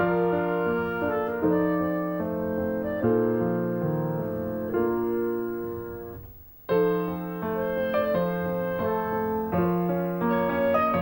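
Background instrumental music led by piano, played as a sequence of held notes. About six seconds in it fades nearly to silence, then starts up again sharply half a second later.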